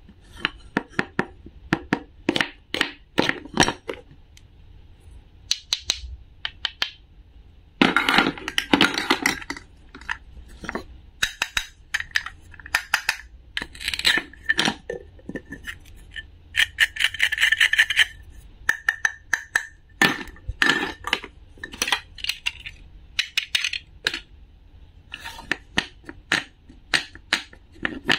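Toy cutting food being handled: hard plastic pieces clicking and knocking, and a wooden toy knife tapping and scraping on a wooden cutting board as the halves are cut and pulled apart. Many short sharp clicks, with two longer scraping stretches, about eight seconds in and again about seventeen seconds in.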